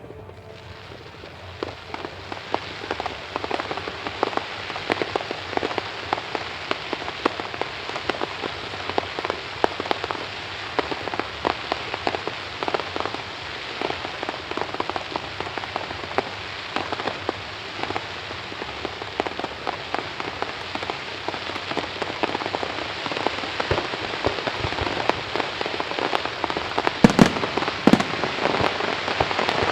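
Fireworks crackling: a dense, continuous mass of tiny pops from crackle effects that slowly grows louder, with a couple of heavier bursts a few seconds before the end.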